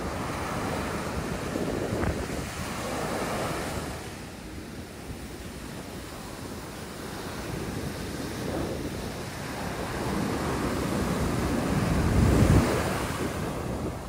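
Ocean surf breaking and foamy water washing up the sand in slow swells, with wind buffeting the microphone; the loudest wash and rumble comes near the end.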